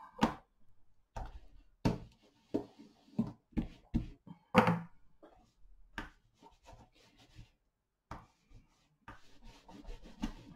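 Clear acrylic stamping block being cleaned on a black cloth and handled on the crafting table: a run of irregular knocks and taps mixed with short rubbing sounds.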